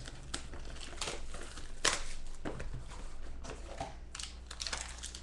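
Plastic wrapping being crinkled and torn by hand as a sealed trading card box is opened. The rustles and crackles come irregularly, with a sharper crackle about two seconds in and a quick run of them near the end.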